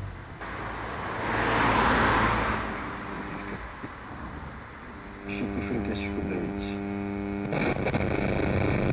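Pilot T85M valve radio's loudspeaker as it is tuned across the band: a swell of static hiss about a second in, then from about five seconds in a steady buzzing hum between stations.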